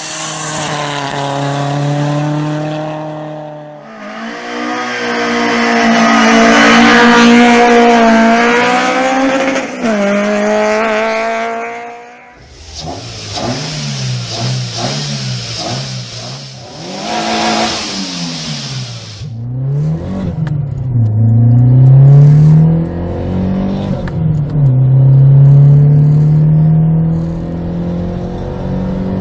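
A run of Fiat engine clips, cut together. First a rally car's engine at high revs, its pitch rising and falling. Then an engine with an aftermarket cone air filter blipped up and down repeatedly, then an engine heard from inside the car accelerating hard, pitch climbing and dropping back at each gear change to around 5,500 rpm.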